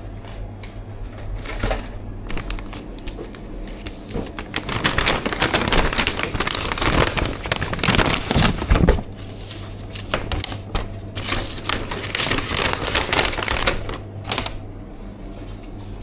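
Plastic packaging being handled, crackling and clicking in two busy spells, one in the middle and one near the end.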